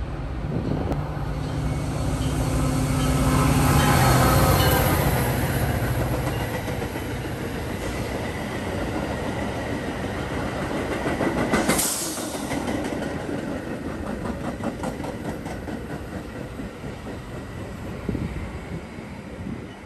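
Metra bi-level commuter train passing close by. Its diesel locomotive's engine swells to a peak about four seconds in, then the stainless gallery cars rumble by with wheels clicking over rail joints and a sharp burst of noise about twelve seconds in. The sound eases as the cab car at the rear goes by near the end.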